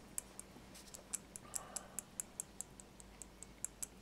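Glass stirring rod clicking against the inside of a small glass beaker as pigment is stirred into clear epoxy: light, quick ticks, about five a second.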